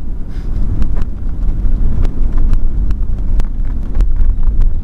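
Car driving along a street, heard from inside: a loud low rumble of engine and road with wind buffeting the microphone, and frequent sharp clicks, two or three a second at irregular spacing.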